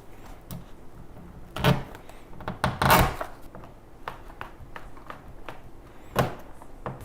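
Compost tumbler parts being handled during assembly: a knock, then a louder scraping clatter about three seconds in, and another sharp knock near the end.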